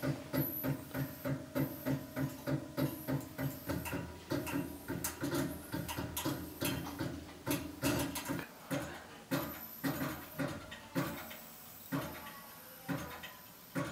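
Rhythmic mechanical clicking and whirring from the motor-driven reel and string mechanism of a kinetic light installation, about three clicks a second at first, then looser and more irregular, easing off near the end.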